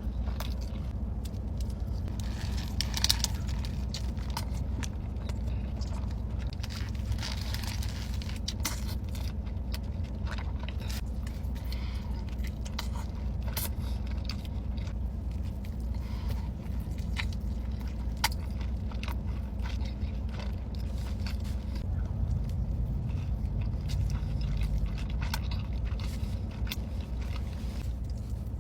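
Close-miked eating: irregular crunching, biting and chewing with scattered sharp clicks, over a steady low hum.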